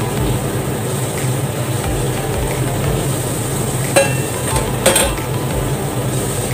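Stir-fry chicken and vegetables sizzling in a frying pan under a glass lid, a steady sizzle over a low hum, with two light clicks about four and five seconds in.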